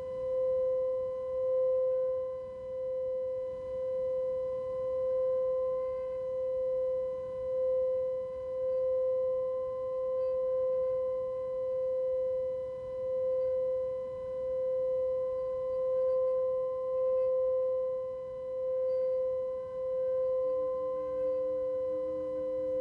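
Tibetan singing bowl ringing with one sustained tone and faint higher overtones, its loudness slowly swelling and fading in waves. Near the end a second, lower tone joins in.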